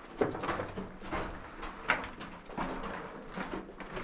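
Footsteps on the loose rock of a mine tunnel floor: short, irregular steps about twice a second.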